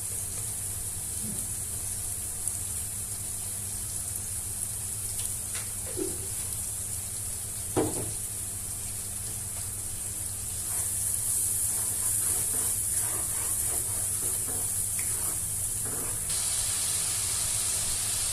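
Spice paste frying in oil in a pan: a steady sizzle that grows louder about two-thirds of the way through, with a few scrapes and taps of stirring and one sharp knock against the pan about eight seconds in. A low steady hum runs underneath.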